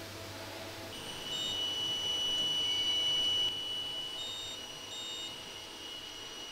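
Electronic beep from an Affri hardness tester during a test cycle. A steady high tone starts about a second in, louder for its first two seconds or so, and holds until it cuts off, with a few short higher pips over it.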